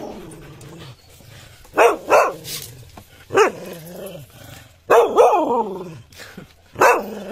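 A dog singing: a run of about five loud howling barks, each sliding down in pitch, the fourth drawn out longer than the others.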